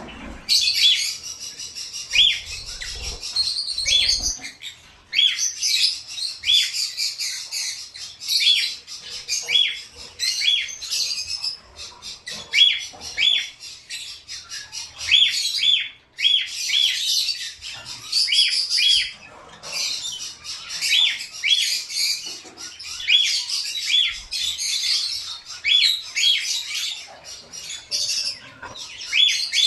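Several small caged birds chirping busily: a dense high twittering, with short sharp calls repeated about once a second.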